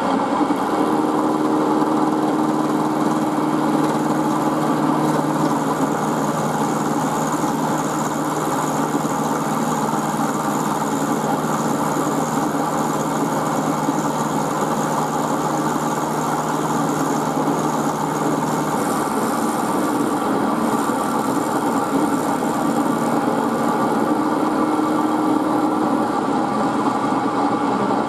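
Milling machine spindle running while an end mill cuts a shallow V groove into a square steel block held in the vise: a steady motor hum with cutting noise. The tone of the hum shifts about two-thirds of the way through.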